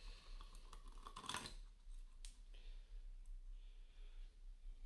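Faint clicks and light knocks of metal parts being handled as the backlight assembly is pressed back into the display unit's chassis, with the clearest cluster of clicks about a second and a half in.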